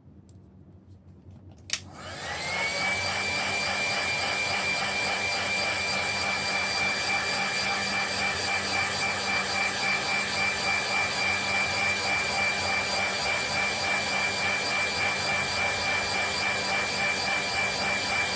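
Small electric motor switched on with a click, spinning up to a steady high whine and running on evenly.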